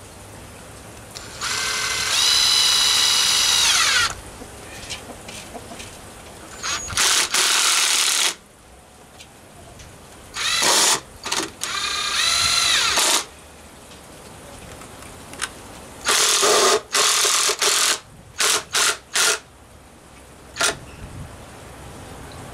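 Ryobi cordless drill driving screws into a wooden post: about five runs of motor whine, each a second to three seconds long, with the pitch falling away as the trigger is released. Near the end come a few quick short blips as the screw is seated.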